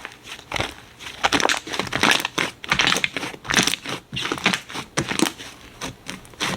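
Slime being pressed and squeezed by hand, making an irregular run of crinkly, crackling pops several times a second.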